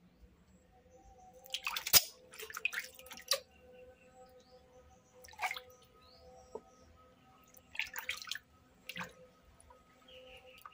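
Water splashing and dripping in a basin as hands wash a baby monkey and scoop water over it, in scattered short bursts, the loudest cluster about two seconds in and a few single splashes later.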